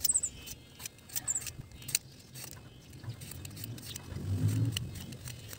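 Scattered small clicks and taps of hands working thin bamboo kite strips, string and a plastic lighter, with a low rumble that swells about four seconds in.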